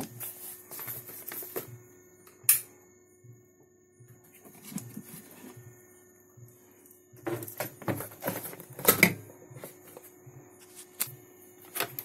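Clicks, knocks and clatter of handling as a heated washing-machine control board is lifted out of a lamp-heated box and set down on a workbench: a single sharp knock about two and a half seconds in, then a busier run of louder knocks and rattles about three-quarters of the way through, over a faint steady hum.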